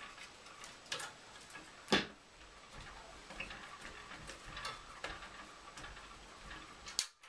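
Light metallic clicks and ticks as over-tightened thumbscrews on a steel PC case are worked loose, with a sharper knock about two seconds in and another near the end.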